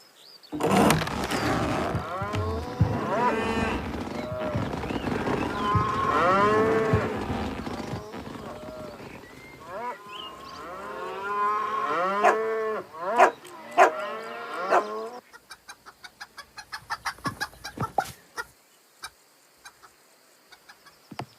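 Cartoon sound effects of farm animals calling over one another, cattle mooing among them, for about fifteen seconds. Then a fast run of light clicks, about six a second, and a few single ticks.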